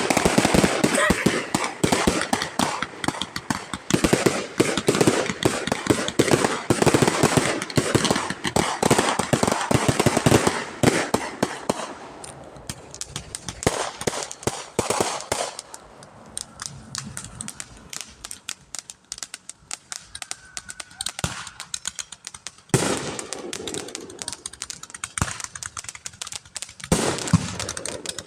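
Fireworks going off in rapid volleys of cracks and bangs. The crackling is dense for the first dozen seconds, thins to scattered pops, then picks up again near the end.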